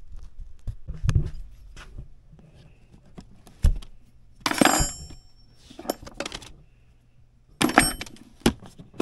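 Scattered clinks and knocks of handling, with metal jingling, as a wrench and gear are picked up and moved. A louder clatter comes about halfway through and a few sharp knocks near the end.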